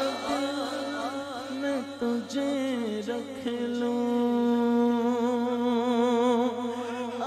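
A man singing a naat into a microphone without words: a wavering, ornamented vocal run, then from about three and a half seconds a long held note with vibrato.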